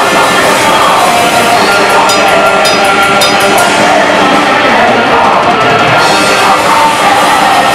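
Black metal band playing live: distorted guitars, bass and drum kit in a dense, loud, continuous wall of sound, with a run of evenly spaced cymbal hits around the middle.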